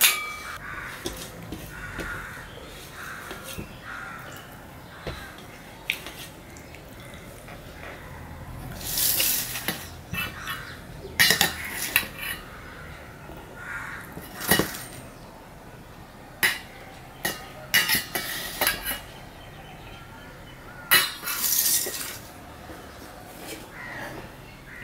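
Stainless steel plates, a bowl and a steel serving spoon clinking and scraping against each other as rice is spooned out, with a string of sharp separate clinks and a few short scrapes in the second half.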